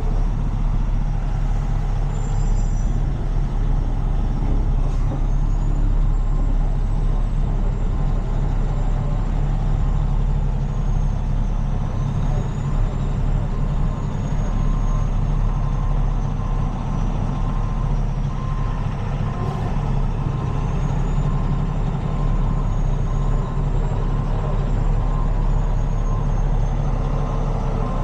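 Heavy diesel tow truck engine running steadily at low speed while backing up with a truck in tow, a continuous low rumble.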